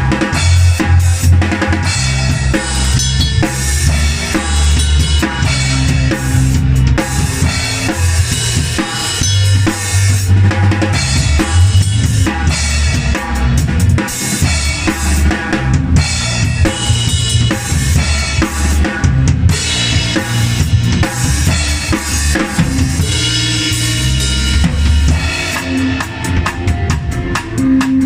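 Drum kit playing with a band through a song: steady kick drum and snare with rimshots over held bass notes and other pitched instruments.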